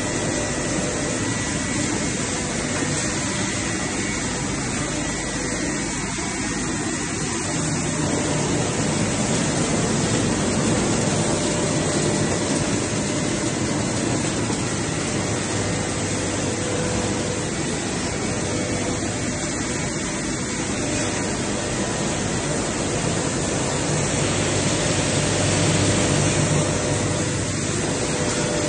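Netplasmak Shredder-1200 plastic shredder running, cutting PVC profiles into chips: a loud, steady rushing machine noise with faint steady whines under it.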